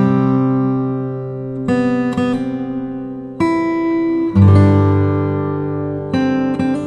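Acoustic guitar music: full chords strummed and left to ring, a new chord struck every second or two.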